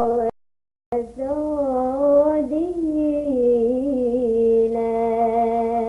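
A single high voice singing with no accompaniment, sliding through an ornamented, wavering line and then holding a long steady note. A brief snatch of the voice cuts off at the very start, and the singing resumes about a second in.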